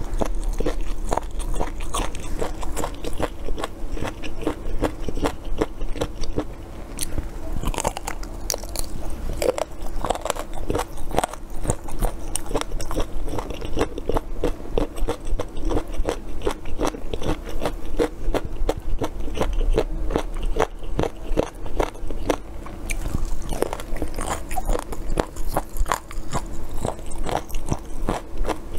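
Close-up crunchy biting and chewing of crisp fried food, a continuous stream of crackly crunches, over a faint steady hum.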